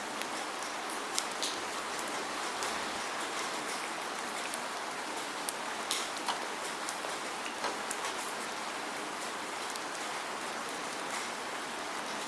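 Steady rain falling, with no thunder: an even hiss of rainfall with scattered sharp drip ticks throughout.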